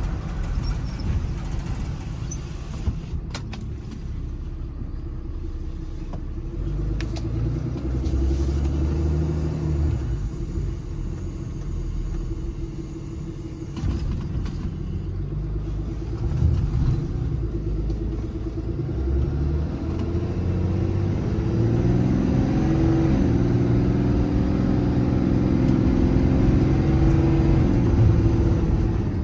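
The truck's 6.7 L Cummins turbo-diesel engine running, a steady low rumble whose engine speed rises and falls in the second half.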